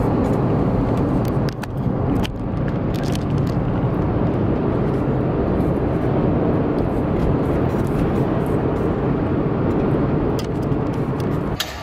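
Steady road and engine rumble inside a moving bus, with scattered light clicks and rattles. It cuts off abruptly near the end.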